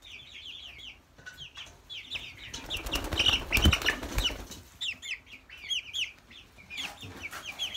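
Young Plymouth Rock and Orpington chickens calling in short, high, rapid peeps. A burst of wing flapping and rustling with a thump comes about three to four seconds in.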